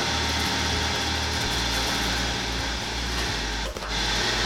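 Steady whirring fan noise with a low hum from a Ninja Foodi Grill preheating, dipping briefly about three and a half seconds in.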